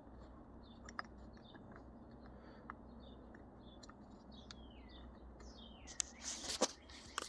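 Small plastic clicks from a shift-knob button assembly being handled and pried apart, with a louder scraping rustle near the end. Birds chirp faintly in the background, one giving a falling whistle about halfway.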